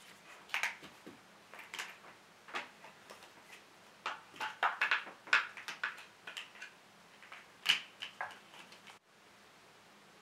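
Irregular light clicks and clatter of hard plastic cat-toy track pieces being handled and knocked about, busiest about four to six seconds in, with a sharp click near eight seconds. The sounds stop suddenly about nine seconds in.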